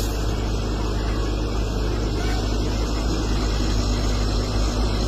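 Baoding wheeled excavator's diesel engine running with a steady, deep drone while the machine digs into dirt.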